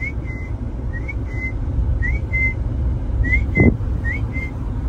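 Puppy whimpering in short high whines, each a quick rising note followed by a short held one, about once a second, over the low rumble of a car. A brief low thump comes a little past halfway.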